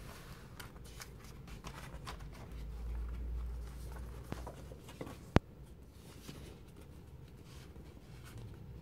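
Pages of a glossy photo magazine being turned and handled by hand: soft paper rustling and sliding through the first half, then one sharp click a little over five seconds in.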